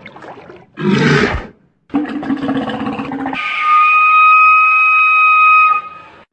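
Walrus calls: a short deep grunt, then a buzzing bellow, then a long steady whistle held for about two and a half seconds.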